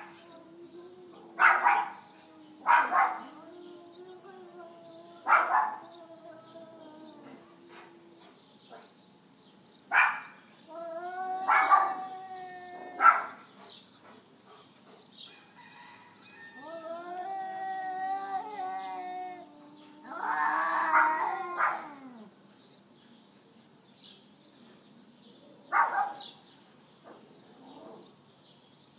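Cats in a fight standoff: long, low, wavering yowls held for several seconds, broken by short, sharp hisses and spits.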